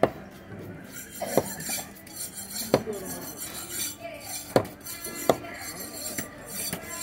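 A large knife chopping through pieces of sea bass onto a wooden stump block: about five sharp chops at uneven spacing, with light clinks between them.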